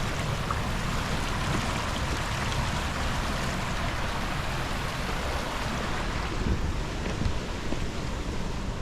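Steady rushing noise of wind buffeting the microphone, with a fluttering low rumble under an even hiss.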